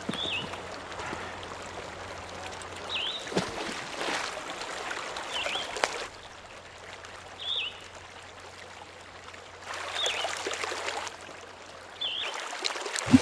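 Outdoor ambience of running water, with a bird giving a short chirp every two seconds or so. A couple of soft knocks or rustles come about a third and halfway in.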